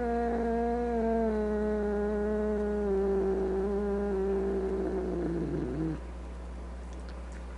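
A Scottish Fold cat's long, low drawn-out yowl, its pitch sliding slowly down, breaking off about six seconds in.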